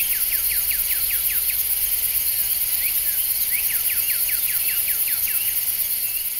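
Nature soundscape: a steady high-pitched insect chorus, with two runs of short, quick chirps repeated several times a second, fading out near the end.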